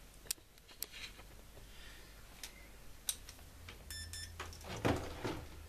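Digital multimeter on continuity test: a few light clicks of the probe tips tapping the rectifier's terminals, then about four seconds in a short stuttering beep as the probes make contact. A low hum starts with the beep, and there is a brief rustle of handling soon after.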